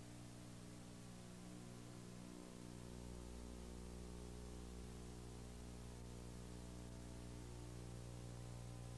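Steady low electrical hum with many overtones over a faint even hiss; it gets slightly louder about three seconds in.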